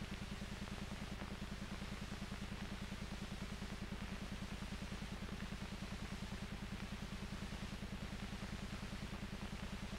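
Steady low hum with a fast, even flutter of about eight pulses a second over hiss: the background noise of an old film soundtrack, with no distinct event in it.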